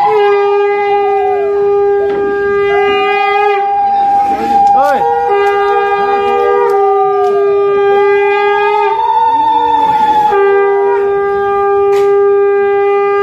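Several conch shells (shankha) blown together in long held blasts at two pitches: the lower one sounds three long blasts with short breaks, while the higher one holds on almost throughout.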